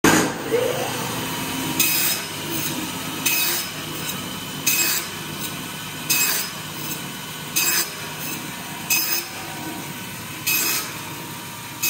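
Hobart 6801 meat band saw starting up, its 3 hp gear-driven motor rising to speed over the first second, then running with a steady hum. A wooden block is fed into the blade again and again, giving a short, loud sawing rasp about every one and a half seconds.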